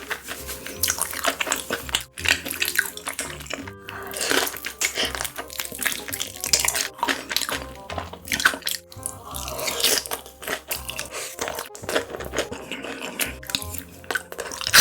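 Close-miked eating sounds, wet chewing, crunching and slurping of spicy, cheesy food, over background music with a steady bass line.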